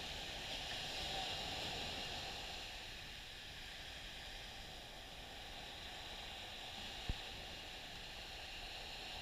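Small waves breaking and washing up a sandy beach: a steady hiss of surf, a little fuller in the first couple of seconds. A brief low thump comes about seven seconds in.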